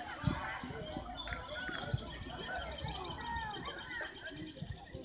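Sideline sound of a youth football match: many overlapping high shouts and calls from players and spectators, with scattered low thumps.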